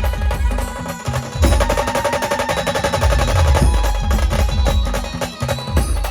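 Brass band playing an instrumental passage without singing: fast, busy drumming under held melody notes, getting louder about a second and a half in.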